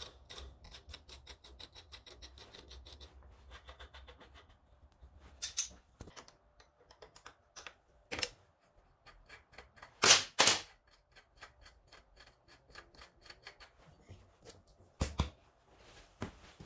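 Metal spanners working the rear chain adjuster bolts on a 125cc motorcycle's swingarm as the adjusters are backed off. There is a quick run of light clicking for the first four seconds or so, then a few separate sharp metal clinks, the loudest about ten seconds in.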